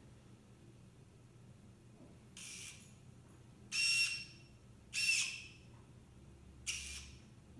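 EZGripper robotic gripper's servo motor whirring in four short bursts of high-pitched whine as its fingers open and close. The middle two bursts are the loudest.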